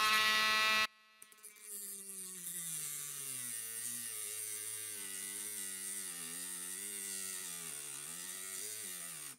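Cordless Dremel Lite rotary tool with a cut-off disc whining, stopping about a second in, then starting again at a much lower pitch that sags and wavers as the disc bogs down against the aluminium bracket. Its battery is dying and it lacks the power to cut.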